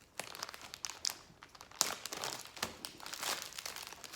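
Small plastic bags of diamond-painting drills crinkling and rustling as they are handled and sorted, in a run of irregular crackles.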